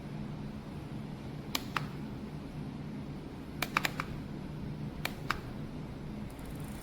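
A few isolated keystrokes on the AULA F108 Pro mechanical keyboard: sharp key clicks in three short groups, over a steady low hum.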